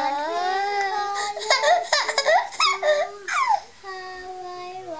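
Young child singing a wordless tune in long, wavering held notes, broken in the middle by a couple of seconds of high squeals and babbling.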